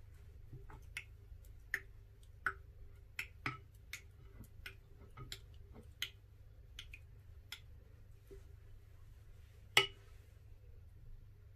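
Silicone spatula stirring a runny slime mixture in a glass baking dish: irregular light clicks and ticks as it scrapes and taps the glass, with one louder knock near the end.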